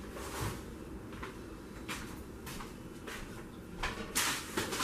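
A few faint knocks and rustles of household things being handled in a kitchen, spaced out, with the loudest ones about four seconds in.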